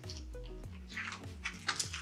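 Soft background music with a repeating low plucked bass line. Faint short rustles and clicks come about a second in, as a picture book's page is turned.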